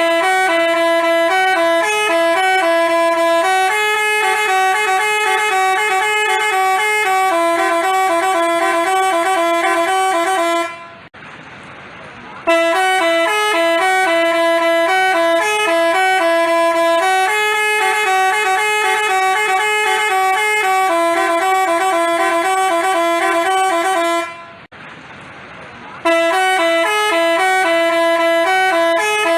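Telolet basuri bus horn playing a loud multi-note tune in stepped chords. The tune plays three times, with a short break about eleven seconds in and another near the end.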